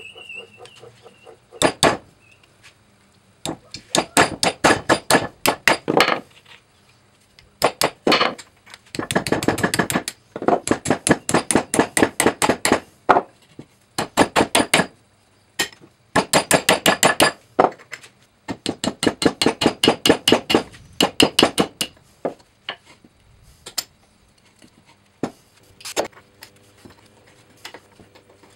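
Hammer striking a punch against an old steel vise body to drive out a pin: runs of sharp, ringing metallic taps, about five a second, in bursts of a second or two with short pauses, thinning to a few scattered taps near the end.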